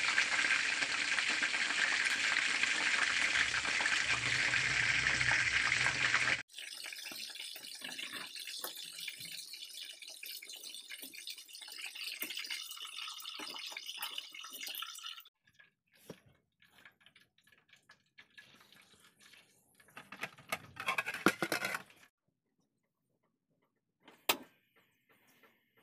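Chicken wings sizzling in hot oil in a wok, loud and steady for about six seconds. It then cuts to a quieter sizzle with small clinks and scrapes of a metal strainer and tongs as the pieces are lifted out. Near the end come scattered clicks, a short burst of noise and one sharp click.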